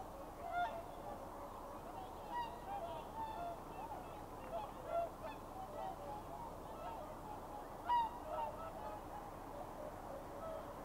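A flock of swans calling on the water: many short calls overlapping throughout, one louder call about eight seconds in.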